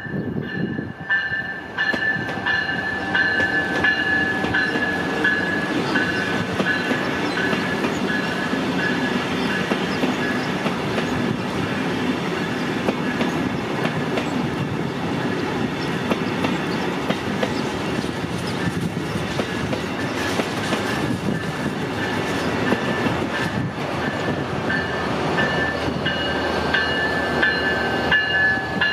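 Amtrak Wolverine passenger train of Siemens Venture cars rolling past, its wheels clicking over the rail joints with a steady rumble. A repeating high ringing runs over it, louder near the start and the end.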